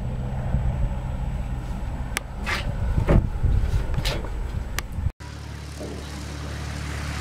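Helicopter flying overhead at a distance: a steady low rotor and engine drone with a few sharp clicks. Just after five seconds the sound cuts off abruptly and gives way to a light propeller plane's steady engine drone as it approaches.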